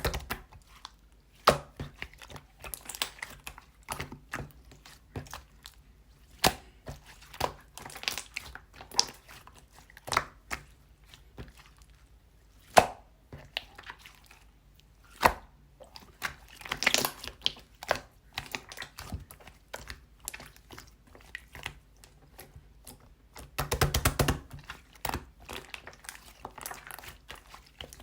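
Irregular sharp taps and clicks with short spells of crinkling and rustling, the sounds of small objects being handled.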